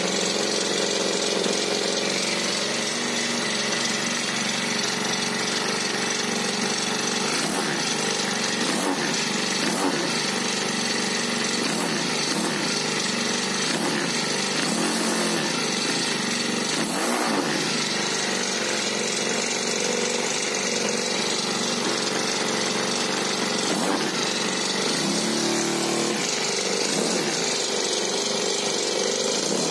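30cc four-stroke mini petrol engine running unloaded with its clutch removed, steadily, its pitch wavering slightly up and down. It is the first run after sitting unused for seven or eight months.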